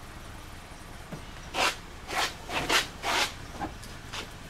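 Butcher-block wooden countertop dragged out of a car's cargo area in about four short scraping pulls, rubbing across the cargo floor, with a couple of fainter scrapes after.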